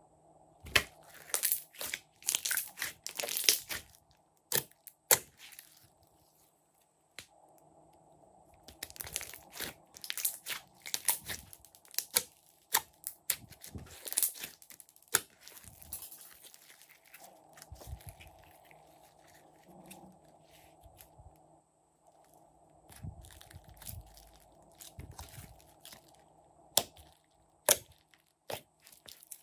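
Glossy slime being stretched, squeezed and kneaded by hand, giving clusters of sticky crackles and sharp popping clicks with short lulls between them.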